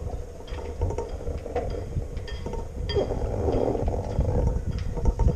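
Sharp metallic clinks and ticks from a sailboat's stainless deck hardware and rigging, scattered through with a few ringing briefly, over a steady low rumble of wind on the microphone.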